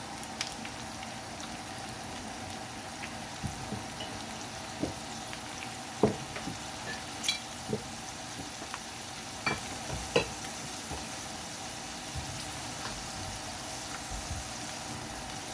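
Garlic and onions sizzling in hot oil in a pan, with fish sauce just added. A utensil clinks against the pan now and then as it is stirred, with the sharpest knocks about six and ten seconds in.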